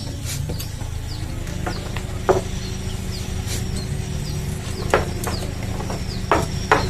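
Small birds chirping over and over, high and short, above a steady low hum. A few sharp knocks and clicks stand out, from a spinning rod and reel being handled on wooden jetty planks: one about two seconds in, one near five seconds, and two close together near the end.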